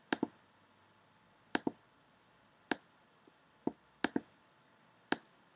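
Sharp computer clicks while objects are selected and moved on screen: six about a second apart, three of them quick double clicks.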